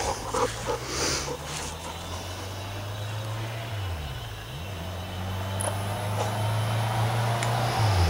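An engine running steadily with a low hum. Its pitch drops and comes back about four seconds in, and again near the end.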